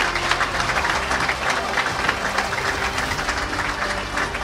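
Audience applauding, with music playing underneath.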